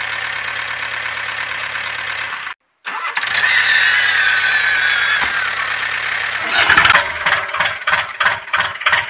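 Motor of a miniature homemade tractor running steadily, then, after a short break, louder with a whine that slowly falls in pitch. Rhythmic music comes in near the end.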